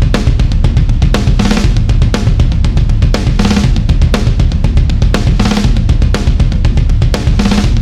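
Sampled rock drum kit from the EZdrummer 3 Classic Rock EZX library playing a steady groove: kick drum, snare and cymbals, with a heavy accented hit about every two seconds.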